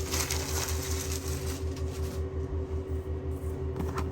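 Steady mechanical hum pulsing at about nine beats a second, with a steady tone above it, like a small electric motor running. Light rustling, like handled packaging, in the first second or two.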